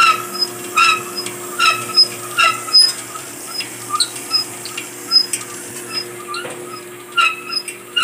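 Homemade grinder drive running: a dryer motor turning a bicycle wheel through a dryer belt and idler pulley. It hums steadily, with a high squeak that repeats a little more than once a second, comes faster and fainter in the middle, and is strong again near the end.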